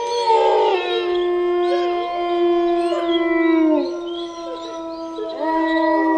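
A pack of wolves howling together: several long howls at different pitches overlap. The lowest howl sags and falls away about four seconds in, and a fresh howl rises in near the end.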